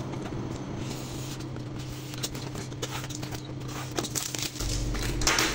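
A cardboard box being handled and opened by hand: faint scrapes and light taps, over a steady low hum.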